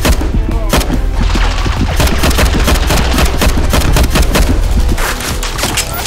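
Rapid, overlapping blaster shots in a Nerf battle, fired in quick volleys like gunfire, over background music with a heavy bass.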